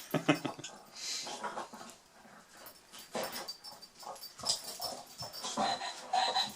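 Boxer dog making short whines and breathy sounds while worrying at a squeaky toy frog, in irregular bursts.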